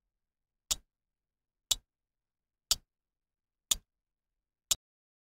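Countdown timer ticking sound effect: five sharp clock ticks, one each second.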